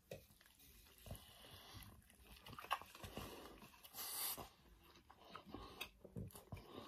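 People biting into and chewing an Arby's Meat Mountain sandwich: faint, irregular wet mouth sounds and small clicks, with a short hiss a little past the middle.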